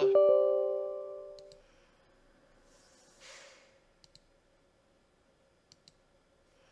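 A computer system chime of several tones at once, fading out over about a second and a half as the installer launches. After it come a few soft mouse clicks on the setup dialog's buttons and a breath.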